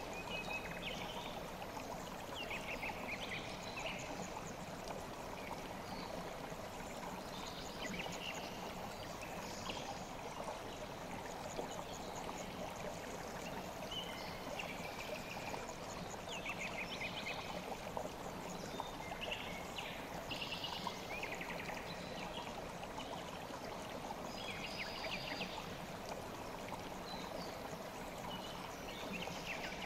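The Kükü river flowing steadily, with short bird chirps and trills breaking in every few seconds.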